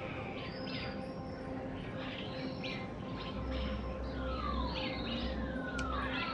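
Starlings calling from a tree: a run of squeaky chirps and several long falling whistles. A steady faint hum and, from about three seconds in, a low rumble lie underneath.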